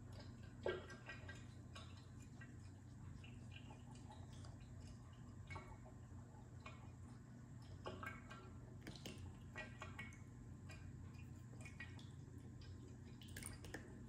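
Faint, irregular small taps and drips of water as a cat paws at a wet bathtub faucet, the sharpest about a second in.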